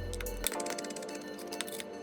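Background music with sustained notes; a deep bass layer drops out about half a second in. Scattered short clicks and ticks sound over it.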